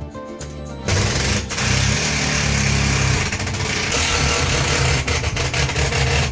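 Handheld cordless power tool running at full speed at a wall-mounted electrical box, starting about a second in and going on with a couple of brief breaks, then cutting off sharply.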